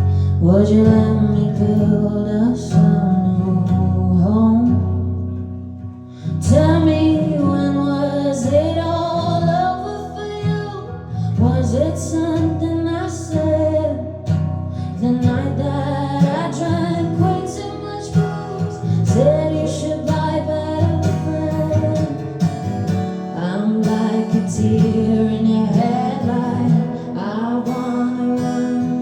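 Live acoustic song: a woman's voice singing over acoustic guitar. The music dips briefly about five seconds in and comes back fuller about a second later.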